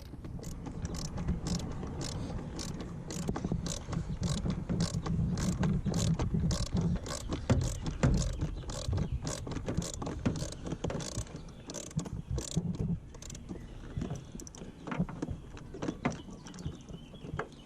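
Hand screwdriver turning a screw out of dashboard trim, giving a regular run of sharp clicks about two or three a second over low rumbling handling noise. The clicks thin out about 13 seconds in.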